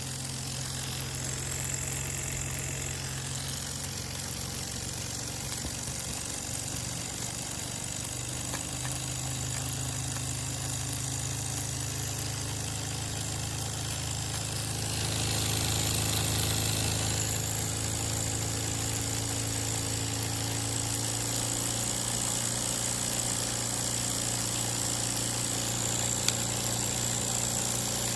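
Mamod Brunel live-steam model locomotive running on full regulator: a steady mechanical hum with a high hiss, swelling louder for a couple of seconds about halfway through.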